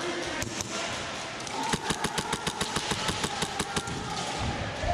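A burst of airsoft gunfire: a string of evenly spaced sharp cracks, about eight a second, starting a little over a second in and lasting about two seconds.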